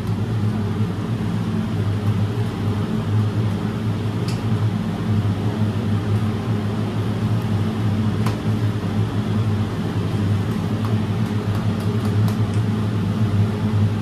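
A steady, low-pitched mechanical hum of a running machine or motor, with a couple of faint clicks.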